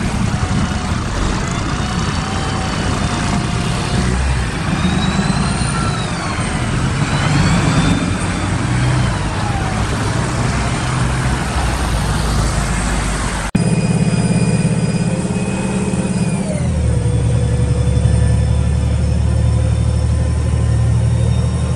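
Street traffic with buses, vans and cars passing and engines revving up and down, then, after a sudden cut, the inside of a Karosa B961 articulated city bus underway: a steady engine drone with a low rumble and a transmission whine, all pitches dropping together about two-thirds of the way through as the gearbox shifts up.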